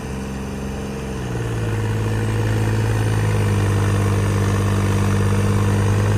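Tractor diesel engines running hard under load in a tug-of-war pull. About a second in, the engine note rises and grows louder, then holds steady.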